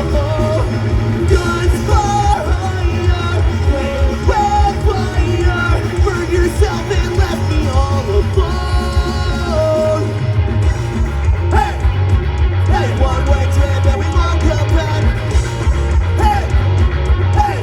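Live rock band playing, with a singer's voice over guitars and a pulsing bass line.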